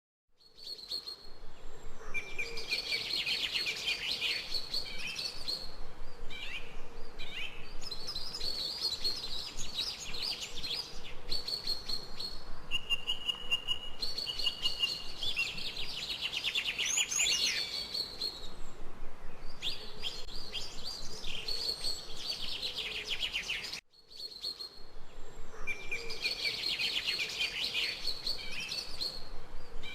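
Birdsong: rapid chirping and trilling phrases repeating one after another over faint steady background hiss, with a brief dropout just before the start and a short break a little after two-thirds of the way through.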